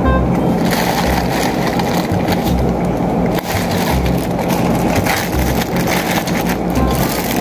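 Clear plastic food bag crinkling and rustling as it is handled, with many small crackles starting about a second in. Background music with a steady low beat runs underneath.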